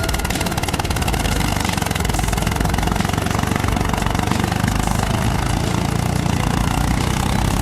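Universal 445 DT tractor engine running steadily under load while pulling wood.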